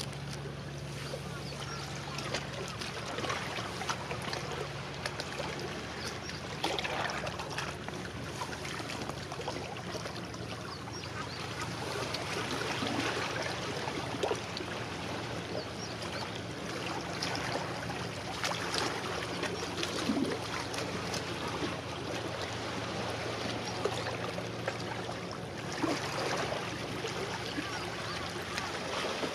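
Small waves lapping and splashing at the water's edge in swells every few seconds, over a low steady drone of a ship's engine that fades out about halfway through.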